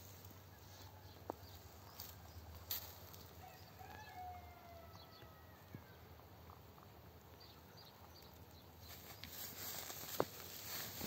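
Faint rustling of straw bedding and light hoof steps from a newborn lamb moving about under its ewe, with a few sharp ticks; the rustling grows louder near the end.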